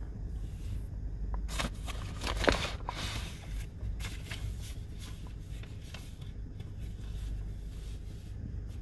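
A sheet of paper rustling and crackling as it is handled and unfolded, loudest about two to three seconds in, over a low steady rumble.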